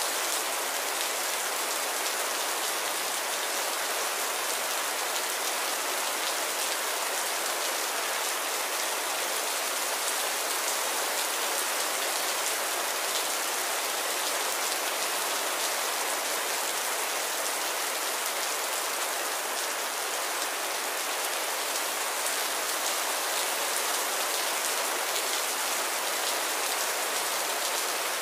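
Heavy rain falling steadily: a constant hiss of downpour with a dense speckle of drops striking surfaces.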